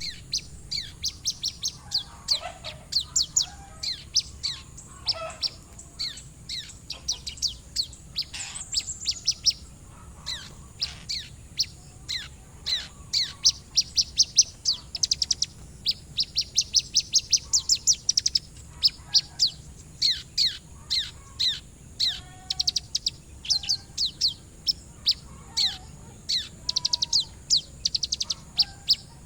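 Sogon sunbird singing a long, fast song of sharp, high chirps and rapid trills. The song is filled with ciblek-style phrases. It is a lure song of the kind played to get other sogons singing.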